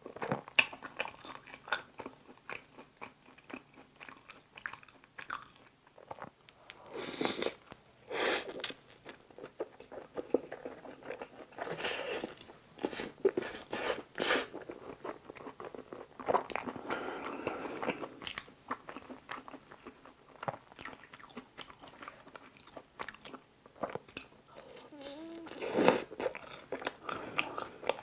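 A person chewing and biting mouthfuls of tteokbokki and pizza: a run of small sharp mouth clicks, with several louder noisy stretches of chewing along the way.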